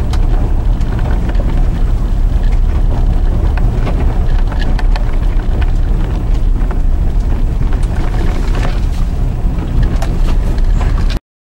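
Vehicle driving on a snow-covered dirt road: a steady low rumble of tyres and road noise with scattered small ticks and crunches. It stops abruptly near the end.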